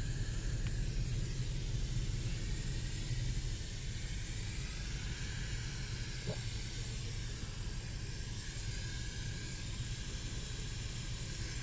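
Garden hose pistol-grip spray nozzle on its mist setting, hissing steadily as it wets dry-poured concrete to start it curing.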